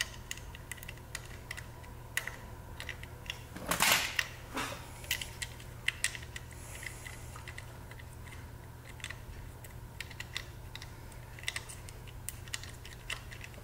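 Light metallic clicks and small scrapes of fingers turning a small screw by hand into an engine's ignition trigger-module mount, with one short louder scrape about four seconds in, over a low steady hum.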